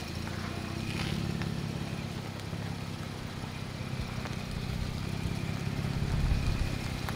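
Toyota FJ Cruiser's 4.0-litre V6 engine running at low revs as the truck crawls slowly over rocks, with a brief swell about six seconds in.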